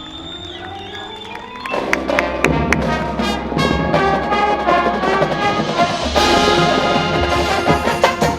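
Marching band playing: a soft passage of held notes, then about two seconds in the full band comes in loud, with brass and sharp percussion hits, and swells again near the end.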